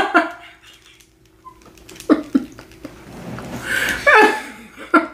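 People laughing and groaning from the burn of very spicy noodles, with breathy gasps between short bursts of voice.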